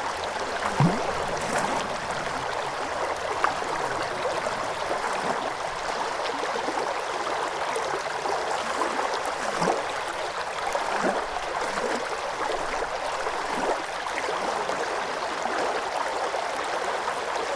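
River water running steadily over stones, with a few brief gurgles and bubbling plops scattered through it.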